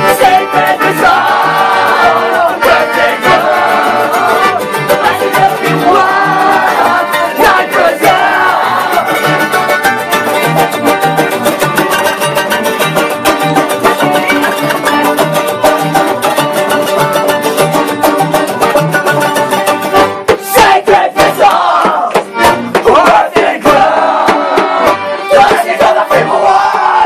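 Live band playing loud, fast music: guitar and upright bass over a quick, steady beat, with a short stop-start break about twenty seconds in.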